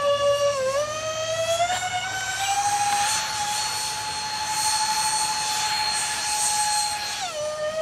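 Electric ducted-fan motors of a radio-controlled SU-35S model jet whining in flight. The whine rises in pitch about two seconds in, holds high and steady, then drops back near the end.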